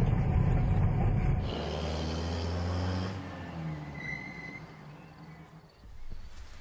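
Engine and cab rumble inside a moving old utility vehicle, cut off suddenly about a second and a half in, giving way to a fainter low steady hum that fades away.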